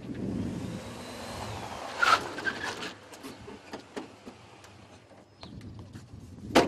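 A Jeep SUV rolls up and stops, with a short, loud squeal about two seconds in. Small clicks follow, then a sharp knock near the end, typical of a car door being handled.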